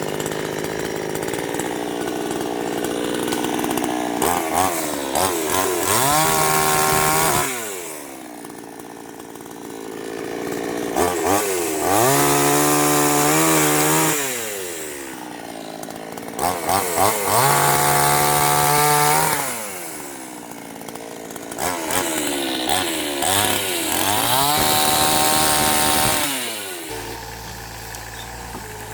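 Two-stroke chainsaw revved up to full throttle four times, each rise climbing in pitch, held for a couple of seconds and then falling back, as it cuts through wood. Near the end a lower, steady engine running takes over.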